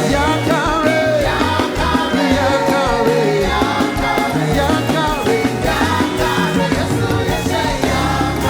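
Upbeat gospel praise song played by a band, with a singing voice carrying the melody over a steady, stepping bass line.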